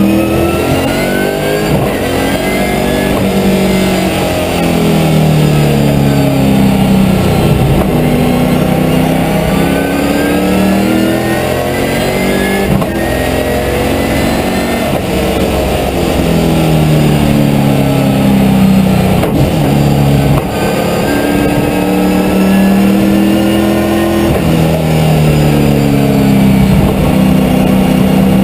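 Holden V8 Supercar's V8 engine heard from inside the race car's cabin, lapping on track. The revs rise and fall in steps through gear changes as the car brakes and accelerates, dropping low and climbing again about three times.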